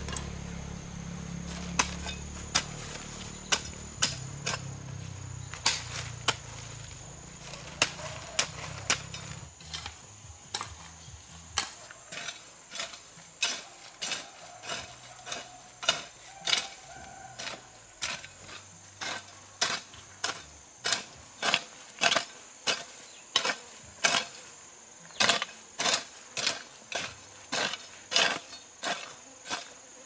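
A hoe's blade striking dry ground over and over: a few scattered strikes at first, then a steady chopping rhythm of roughly one strike every half second. Insects chirr steadily.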